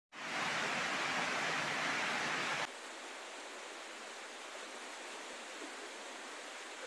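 Steady rushing noise of water during a flash flood. About two and a half seconds in it drops suddenly to a quieter, thinner hiss.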